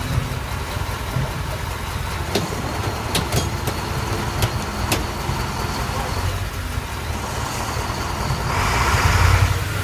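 Heavy diesel dump truck engine running with a steady low rumble, with a few sharp clicks in the middle and a louder rush near the end.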